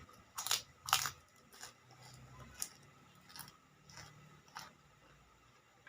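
Close-up eating sounds: chewing with crisp crunches of kerupuk crackers. Two loud crunches come about half a second and a second in, then lighter ones every half second to second.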